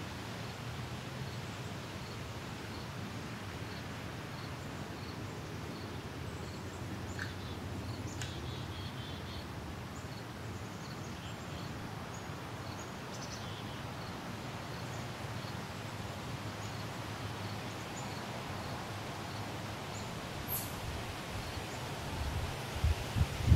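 Outdoor woodland ambience: a steady low rumble and hiss of wind and leaves, with a faint high chirp repeating about once a second and a few short bird chirps. Low rumbling bumps grow louder near the end.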